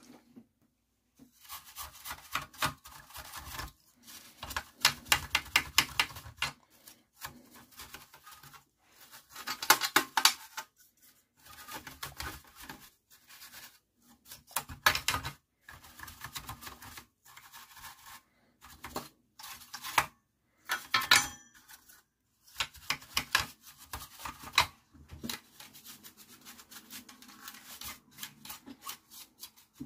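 Small hard parts of an amplifier being handled and cleaned on a workbench: bursts of rapid clicks, taps and rubbing or scraping, a few seconds at a time with short pauses between.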